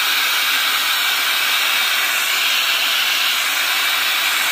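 Loud, steady FM radio static, a hiss with no station, from a 5 V Bluetooth amplifier module in FM mode tuned to 87.5 MHz, playing through its two small speakers.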